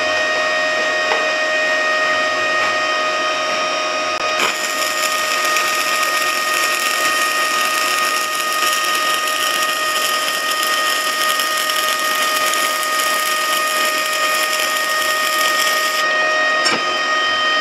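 Stick-welding arc from a 1/8-inch E6013 electrode at about 85 amps, hissing steadily as a drag bead is run, over a steady high whine. The hiss grows fuller about four seconds in and falls back about two seconds before the end.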